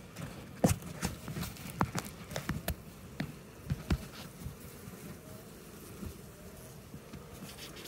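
A quick run of sharp clicks and knocks, about a dozen in the first four seconds, from wooden hive frames and tools being handled at an open beehive. Honeybees buzz faintly beneath, and the handling noise dies away after about four seconds.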